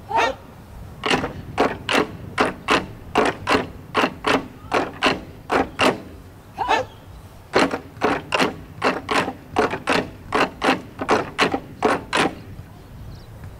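Ensemble of taiko drums struck in unison with wooden bachi sticks: sharp strikes about two a second in a set rhythm, with a couple of short pauses, stopping about twelve seconds in.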